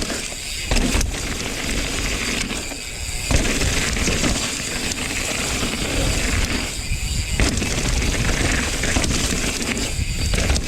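Rocky Mountain Slayer mountain bike riding down a rough dirt trail: a steady rumble of tyres and frame over the ground, with sharp knocks and rattles as it hits roots and rocks.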